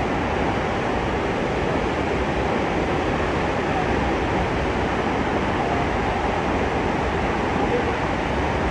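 Steady rush of falling water from a large waterfall, an even noise with no breaks or changes.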